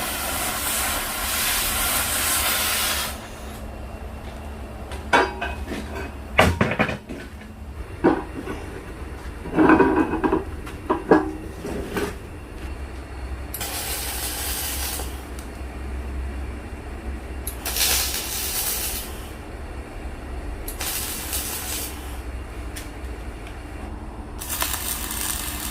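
Electric arc welding on steel: several runs of crackling hiss from the welding arc, the first about three seconds long and then four shorter ones. In the middle are sharp metal clanks and knocks. A steady low hum runs underneath.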